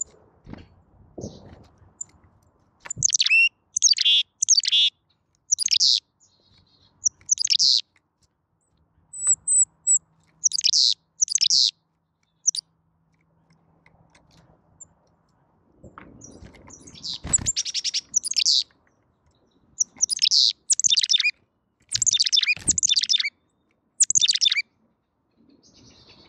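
Carolina chickadee calling repeatedly close by: quick high call notes with buzzier notes among them, in two runs with a gap of a few seconds between. About 17 seconds in there is a loud thump, with low scuffing around it, close to the microphone.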